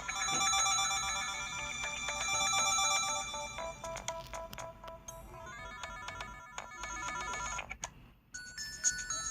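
Electronic ringtone of an LG-SH100 mobile phone playing: a synthesised melody of held notes over sharp ticking percussion. Near the end it breaks off briefly and different notes begin.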